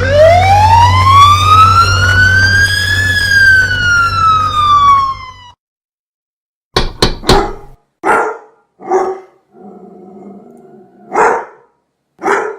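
A siren wail over a low hum, rising for about three seconds and then falling, cut off abruptly. Then three sharp clicks, followed by a dog barking several times, with a low growl between the barks.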